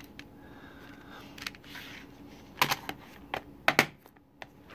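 Plastic Blu-ray case being handled and closed: a scatter of sharp plastic clicks and clacks, the loudest about two and a half seconds in and again about a second later.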